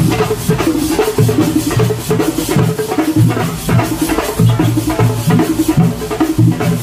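A marching drum troupe's shoulder-slung drums, many beaten with sticks together in a fast, steady rhythm.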